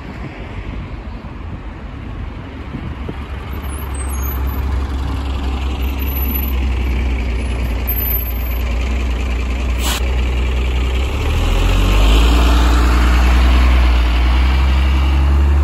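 Diesel engine of a Plaxton-bodied single-deck bus growing louder as the bus comes up close and passes, with a brief sharp hiss about ten seconds in. From about eleven seconds the engine note steps up and gets loudest as it pulls away.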